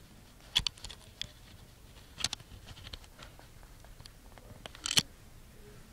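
Small sharp clicks and taps of iPhone 3GS parts being handled and pressed together during reassembly. There are a few clustered clicks about half a second in, one a little after two seconds, and the loudest near five seconds.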